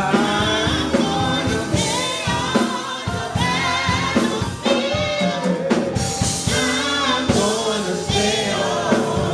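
Gospel choir and praise team singing with a live church band: voices holding and bending long notes over keyboard, bass and drums.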